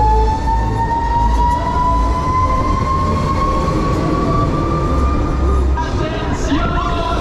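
Twister fairground ride's drive whining as the ride spins up, the whine rising slowly and steadily in pitch over a low rumble.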